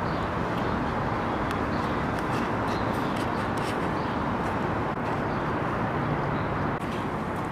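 Steady outdoor city street noise: a constant rushing hum with a few faint light ticks.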